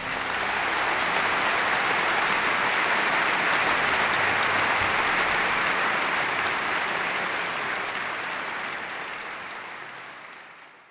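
A crowd applauding steadily, fading out over the last few seconds.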